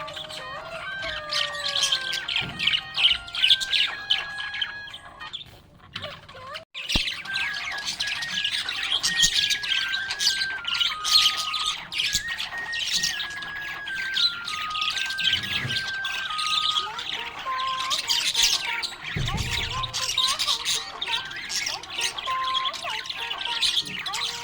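Budgerigars chirping and warbling rapidly and continuously, with background music playing a simple stepped melody. The sound dips briefly about six to seven seconds in.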